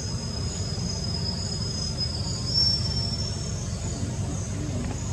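Insects calling: a thin, steady high whine that fades out after about three and a half seconds and a pulsing high trill above it, over a steady low rumble.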